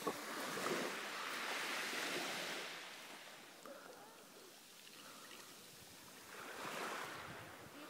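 Small waves washing up on a pebble beach, the wash swelling over the first few seconds, easing off, and swelling again near the end.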